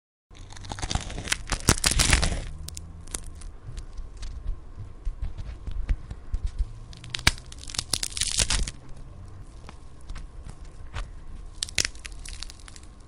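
Bone-breaking sound effect: crunching and cracking snaps in three dense clusters, about a second in, around seven to eight and a half seconds in, and near the end, with scattered single cracks between over a low rumble.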